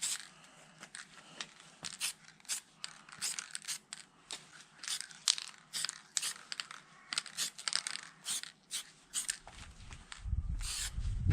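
Rasping strokes of hand abrasive work on a part, irregular at about two to three a second. A low rumble comes in near the end.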